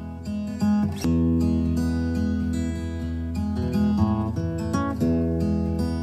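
Background music: acoustic guitar playing a gentle strummed and picked tune.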